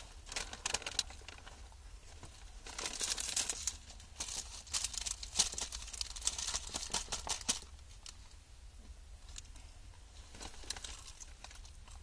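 Paper food bag and wrapper crinkling and rustling as it is handled, in irregular bursts that are busiest from about three to seven and a half seconds in.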